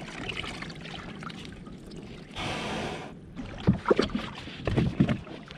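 A plastic fishing kayak coming ashore on a sandy beach. Water washes around the hull, there is a brief scraping hiss of the hull sliding up onto the sand, then a string of knocks and scuffs as the paddler gets out and handles the kayak.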